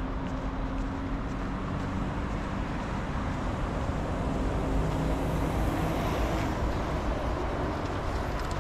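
Street traffic noise: a motor vehicle running with a low hum, getting louder about five seconds in as it passes close by.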